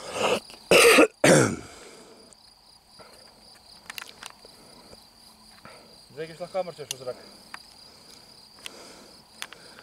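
Crickets chirping steadily in high, even trills. A person's voice is loud in the first second and a half, and a short stretch of quieter speech comes about six seconds in.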